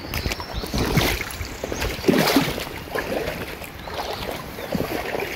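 Shallow river water sloshing and splashing around legs in waders as a person wades across a rocky riverbed, in irregular surges with each step.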